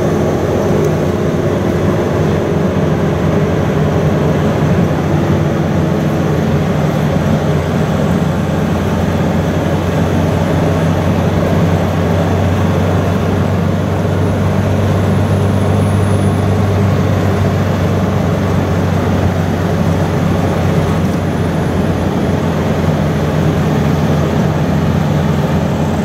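Steady engine drone and road noise of a passenger truck on the move, heard from its open back, with a constant low hum and no changes in pace.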